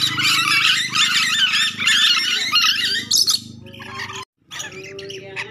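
Ornate lorikeets (nuri dora) chattering and screeching in a dense, fast run of squawks for about three seconds, then quieter calls. A steady low hum runs beneath, and the sound cuts out completely for a moment a little past four seconds.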